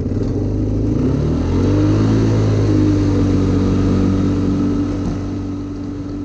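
ATV engine accelerating as the quad pulls away, its pitch rising over the first two or three seconds, then running steadily and fading as it moves off.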